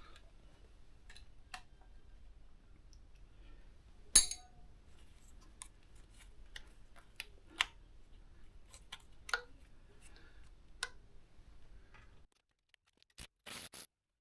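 Scattered sharp clicks and light taps of small parts and hand tools being handled during motorcycle wiring work, with one louder sharp click about four seconds in and a brief rustle near the end.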